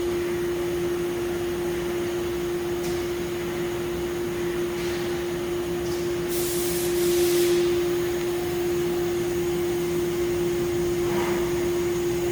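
Haas UMC-750SS CNC machining center's 40-HP inline direct-drive spindle running steadily at about 10,000 RPM, a constant whine that holds one pitch. About six seconds in, a burst of hissing lasts just over a second.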